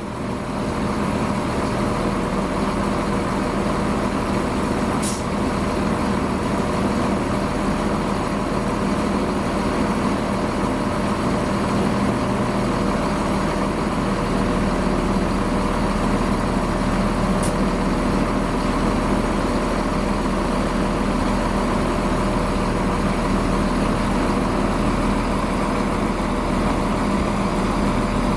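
Chiltern Railways Class 168 diesel multiple unit running steadily on its diesel engines as it approaches and draws slowly into the platform. Two brief high-pitched ticks come about five seconds in and again near eighteen seconds.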